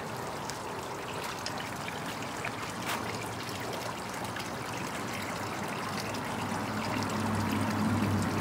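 Water trickling steadily. A low hum comes in about seven seconds in.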